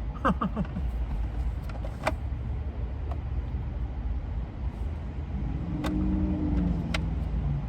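Steady low rumble of a car, with a few sharp clicks and a brief hum partway through.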